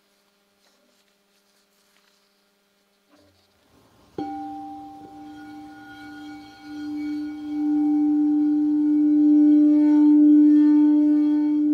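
Crystal singing bowl struck once about four seconds in, its ringing tone then holding and growing steadily louder.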